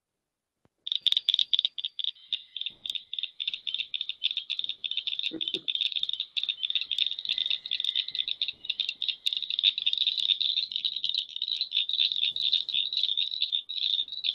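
Northern cricket frog calling: a rapid, unbroken series of sharp, high clicks, like marbles tapped together, starting about a second in and growing denser later on.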